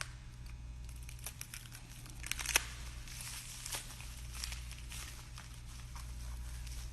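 Packing material being unwrapped and pulled out of a shipping box by hand: an irregular run of crackles and rustles, with the sharpest crack about two and a half seconds in.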